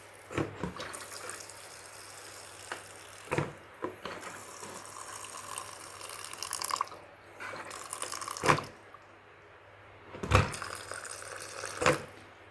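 Wet liquid sounds, like water being poured or handled, with about five sharp knocks spread through.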